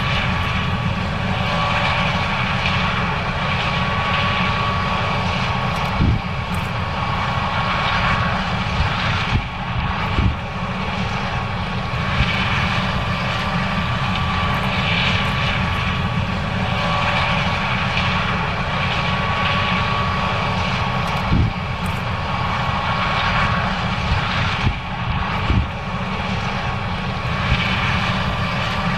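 John Deere S790 combine running steadily while harvesting corn: a constant engine drone with a high steady whine over it, broken by a few brief knocks.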